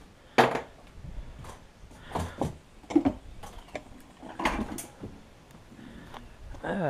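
Scattered knocks and clatters of things being handled in a workshop, then footsteps on wooden deck boards, with a few sharp knocks standing out.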